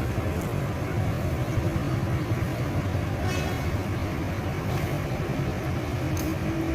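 Steady low rumble of vehicle engines and road noise.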